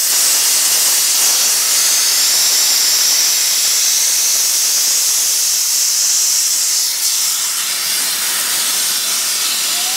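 A steady, loud hiss, mostly high-pitched with little low rumble, easing slightly about seven seconds in.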